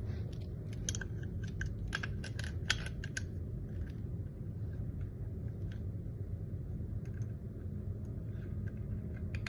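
Small metal parts of a door lock clicking and ticking as it is reassembled by hand. The light clicks come quickly for the first few seconds, then fall to scattered clicks, over a steady low hum.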